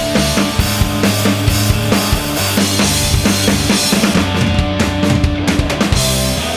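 Background rock music with a driving drum kit beat and bass, replacing the original sound.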